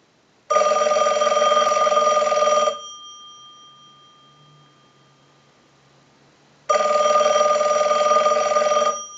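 Western Electric bell box ringer sounding two rings of about two seconds each, with about four seconds between them, the clapper rattling on the gongs. After each ring the gongs ring on and fade. It is the ring cycle of an incoming call, sent from a line analyzer to test the ringer after repair.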